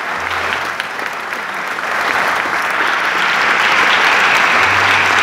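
Audience applauding, with a clapping hand close by; the applause swells louder about two seconds in.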